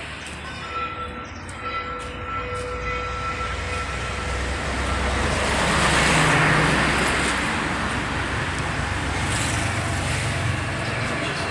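Road traffic noise: a steady low rumble that swells to its loudest about six seconds in as a vehicle passes, then eases off.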